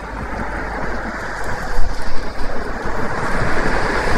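Gusty wind buffeting the microphone, a steady low rumble with a rushing noise that swells and falls, strongest about two seconds in.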